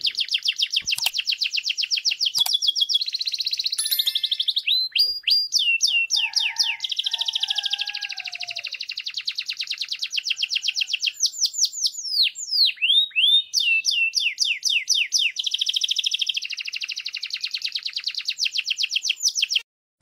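Gray canary singing: long, fast trills of rapidly repeated notes, broken in the middle by louder downward-sweeping notes, then trilling again. The song stops abruptly just before the end.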